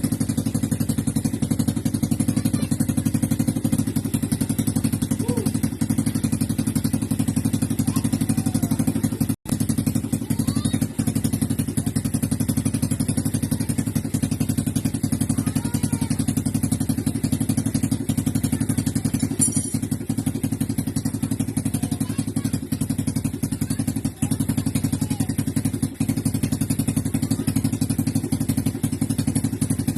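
Old motorcycle engine idling steadily, with a brief dropout about nine seconds in.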